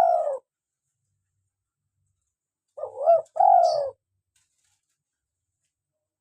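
Spotted dove cooing: the end of one phrase right at the start, then a full phrase about three seconds in, two quick notes followed by a longer drawn-out coo.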